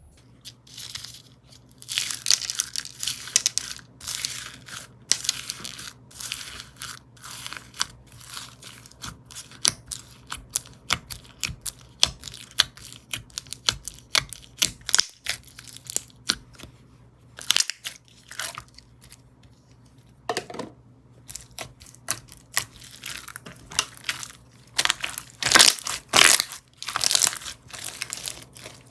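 Slime played with by hand: a fast, irregular run of crackling, crunching and tearing noises with short pauses, loudest a couple of seconds in and again near the end.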